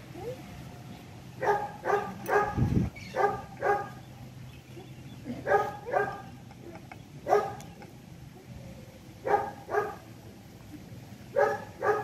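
Short, sharp animal calls, mostly in quick pairs, repeating every two seconds or so. A single dull thump comes about two and a half seconds in.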